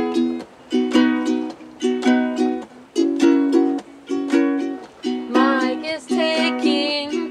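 Ukulele strummed in a steady, rhythmic chord pattern, a group of quick strums about once a second.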